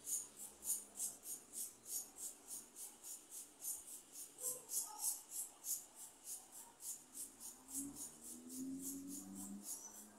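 Insect chirping in a steady, high-pitched rhythm, about four chirps a second, faint.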